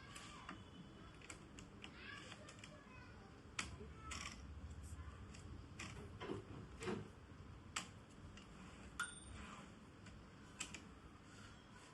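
Sporadic single clicks and light knocks from the mechanism of a Hermes Baby portable manual typewriter, a few strokes spaced irregularly about a second apart.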